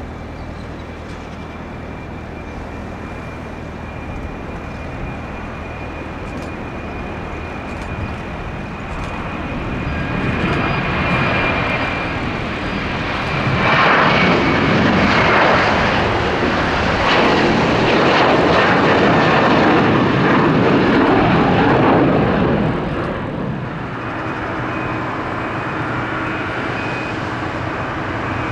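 Airliner engines passing close by. The noise builds over several seconds, stays loud for about eight seconds, then drops off sharply, with a thin steady high whine during the first half.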